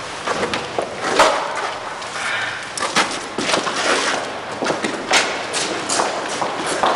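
Irregular knocks and thumps over a rustling noise, with a faint voice-like sound about two seconds in.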